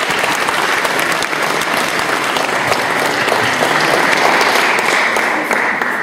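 A large audience applauding steadily, a dense patter of many hands clapping, which starts to die away at the very end.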